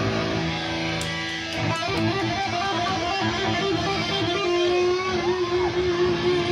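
Live band playing electric guitar over drums: a quick run of picked notes, then a long held guitar note bent up and down in pitch.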